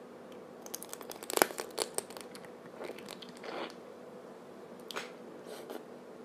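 A person biting into and chewing crunchy food close to the microphone: a quick run of crisp crunches about a second in, then a few softer, scattered crunches.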